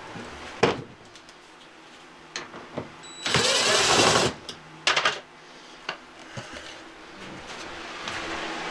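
A DeWalt cordless drill-driver runs in one burst of about a second, backing a screw out of a cabinet door hinge. A few sharp knocks come before and after it.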